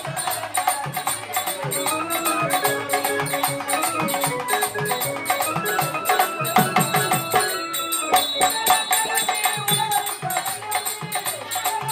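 Live music from a Tamil folk-theatre (koothu) ensemble: hand drums beat a steady rhythm under continuous jingling and rattling percussion, with a held melody line stepping up and down through the middle.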